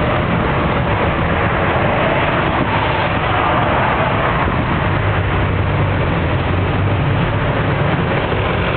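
Jeepney's diesel engine running steadily with road and wind noise, heard from inside the moving jeepney's open rear.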